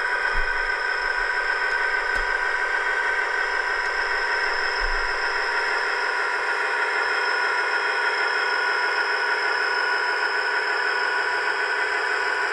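Dapol OO gauge Class 59 model locomotive's sound decoder playing its EMD two-stroke V16 diesel engine sound through the model's small speaker as it runs slowly. The sound is steady and thin, with no deep rumble.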